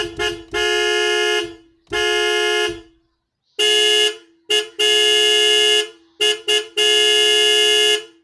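A horn honking over and over at one steady pitch: a mix of short toots and longer blasts of about a second each, about a dozen in all.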